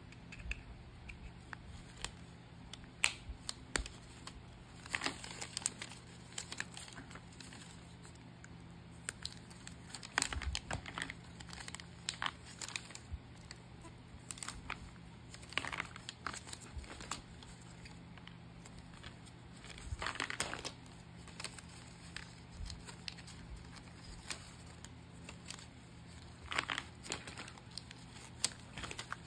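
Packaging material being handled while packing orders: irregular crinkling and rustling, short tearing sounds and scattered light clicks and taps, over a steady low hum.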